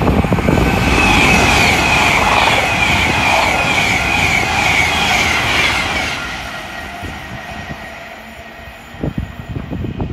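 Electric passenger train passing along the main line at speed, a loud rush of wheels and air with a high whine running through it, fading away after about six seconds.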